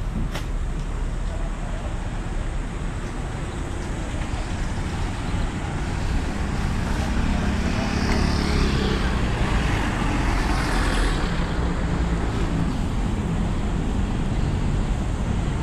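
Steady rumbling background noise that swells for a few seconds about halfway through, then eases off, with a single click near the start.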